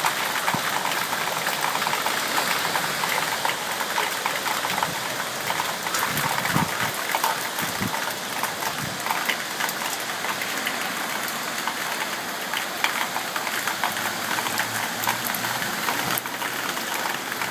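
Rainwater running and splashing across a yard in a steady rush with many small patters of falling rain; it is runoff overflowing from a flooded city street.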